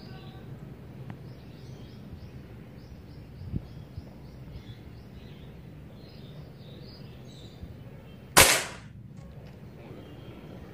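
A single shot from a BSA Stutzen .177 spring-piston air rifle, a sharp crack with a short tail about eight seconds in. A softer thump comes about three and a half seconds in.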